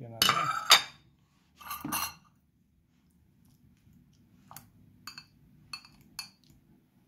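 Dishes and a fork clattering, loudest in the first second with a second clatter about two seconds in, then a fork clinking four times against a ceramic bowl while soft cooked tomatoes are mashed.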